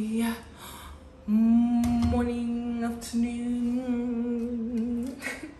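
A woman's voice holding one long, nearly level note for about four seconds, with a short break partway through.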